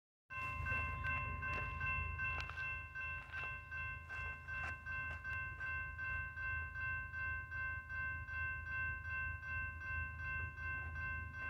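Railroad grade crossing warning bell ringing steadily in a regular pulse, with a few sharp clicks in the first seconds, signalling an approaching train. A low steady rumble runs underneath.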